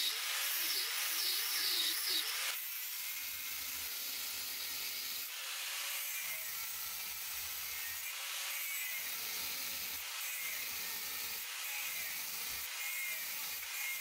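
Abrasive cut-off disc on an angle grinder cutting through a steel file, a steady high grinding hiss of the wheel biting the metal. The sound drops a little and changes character about two and a half seconds in.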